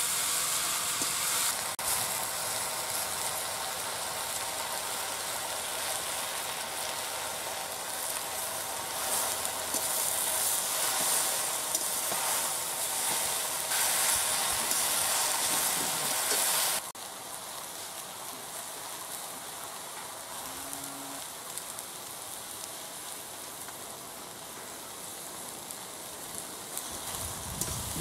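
Jute leaves frying in oil in an aluminium pot: a steady sizzling hiss, which drops suddenly to a quieter sizzle about two-thirds of the way through.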